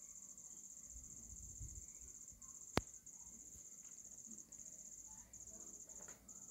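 Faint, steady high-pitched insect trill that breaks off briefly every second or so, with one sharp click near the middle.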